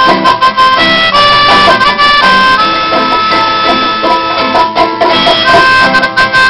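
Live instrumental passage: a melodica plays the tune in held notes over strummed acoustic guitars.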